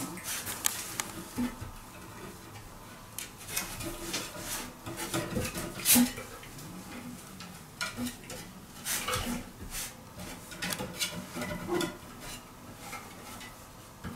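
A raccoon's claws clicking, tapping and scraping on wooden ladder rungs as it climbs, in irregular bursts, with the loudest knock about six seconds in.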